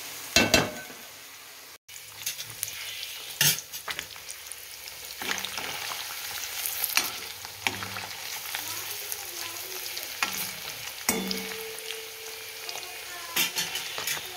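A metal spatula scrapes and knocks against an aluminium pot as peas and carrots are stirred. After a short break, paneer cubes sizzle in hot oil in a kadai with a steady hiss, and a metal spoon scrapes and clicks against the pan as it turns them.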